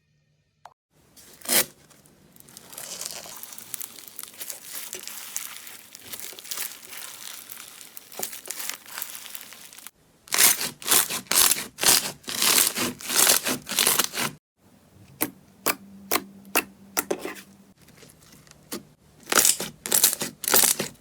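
Slime being pressed and stretched close to the microphone: a continuous crackling at first, then, after a cut, a quick series of sharp pops and snaps, a few a second.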